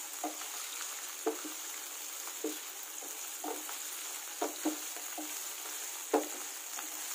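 Mushrooms sizzling in oil in a non-stick frying pan, a steady frying hiss, while a wooden spatula stirs them, scraping and knocking against the pan about once a second, the loudest knock near the end.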